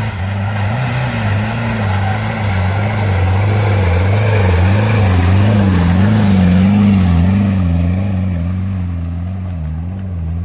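An off-road 4x4's engine running under load as it climbs a track of loose rock, its pitch wavering up and down as the throttle is worked, loudest about the middle.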